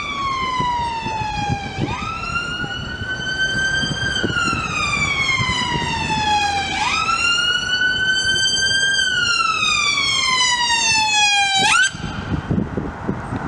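Emergency vehicle's electronic siren on a slow wail. It sweeps down and then climbs back up about every five seconds, then cuts off abruptly near the end as the vehicle arrives.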